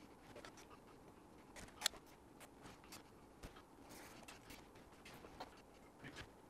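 Near silence broken by faint, scattered small clicks and rustles of hands handling and rubbing dry-transfer sheets on a model rocket fin, with one sharper tick about two seconds in.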